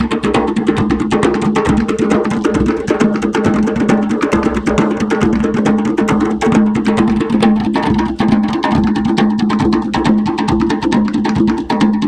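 Several djembes played together by hand in a fast, dense interlocking rhythm, over a steady low tone.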